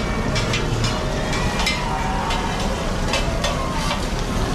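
Steady bustle of a busy street-food market, with short clinks and clatters scattered through it.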